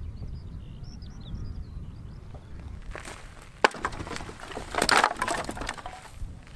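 Wind rumbling on the microphone, then wooden planks and sticks of firewood clattering and knocking as an armful is dropped onto a pile of firewood, loudest about five seconds in.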